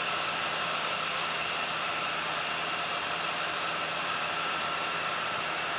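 Garant 4 cigarette-making machine running at top speed: a steady mechanical whir and hiss with faint steady tones and no separate strokes.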